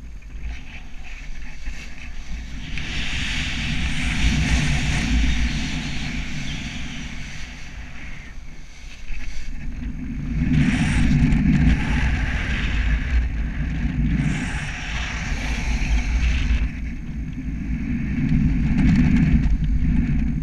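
Wind rushing over an action camera's microphone in paraglider flight. The low buffeting and hiss swell and ease several times.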